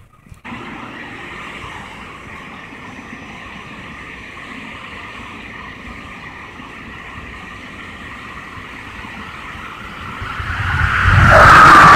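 Amtrak passenger train approaching on the main line. A steady distant rail noise swells sharply about ten seconds in and turns loud as the train comes up to the platform.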